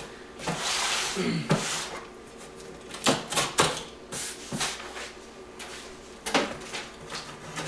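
Box cutter slicing packing tape on a cardboard box: a rasping scrape about half a second in, then a few short, sharp scrapes and knocks as the tape and box top are worked.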